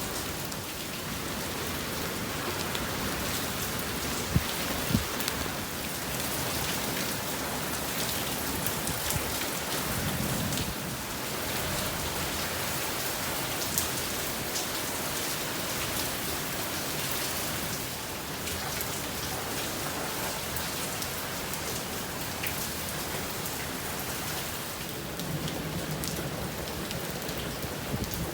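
Steady rain falling and splashing on surfaces, an even hiss with a few sharper drips or taps standing out now and then.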